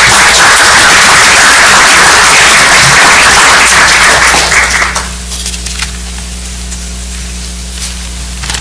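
Audience applauding, loud for about five seconds and then dying away to a few last claps. A steady low hum from the hall's sound system runs underneath.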